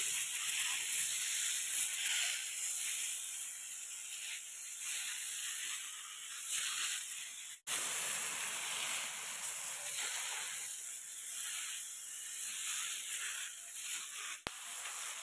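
A sprayer nozzle spraying a fine mist of herbicide mix onto weeds: a steady hiss that cuts out for an instant about halfway through, then carries on.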